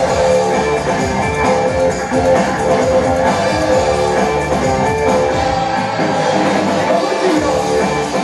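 Loud rock-style music with guitar and a drum beat. The bass drops out for about a second and a half near the end, then comes back.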